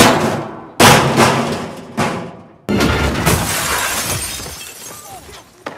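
Window glass shattering in a series of sudden crashes, four in all, each trailing off as the shards fall, the last and longest dying away over a couple of seconds.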